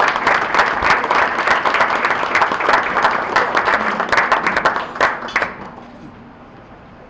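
Banquet audience applauding as award recipients are called up; the clapping dies away about five and a half seconds in, leaving low room chatter.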